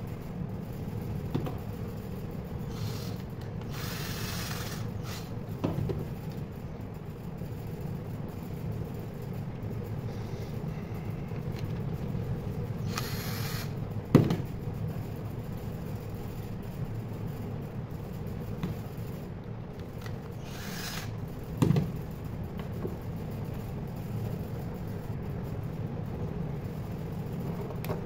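Wires and a small metal toggle switch being handled and rustled on a wooden workbench, with two sharp knocks, one about halfway through and one later on, over a steady low background rumble.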